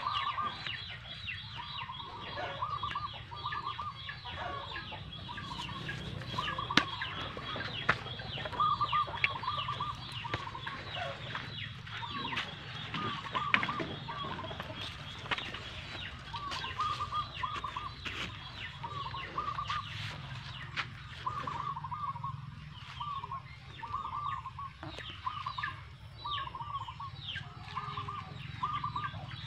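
Birds calling: a short clucking call repeats every second or so among other chirps, with scattered sharp clicks.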